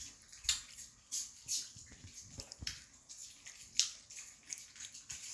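Small white dog at its food plate making faint, irregular soft clicks and snaps, one or two a second, the sharpest about four seconds in.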